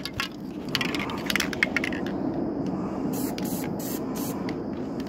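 Aerosol spray-paint can spraying in short hisses, about four quick bursts in the second half, after a few clicks near the start, over a steady low background noise.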